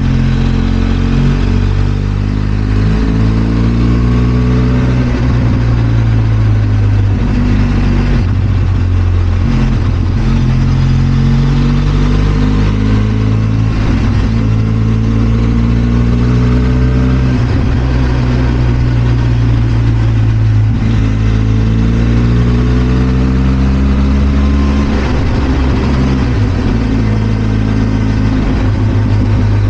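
Benelli TRK 502 X's 500 cc parallel-twin engine running under way, its pitch climbing and dropping again and again as the bike accelerates, changes gear and slows.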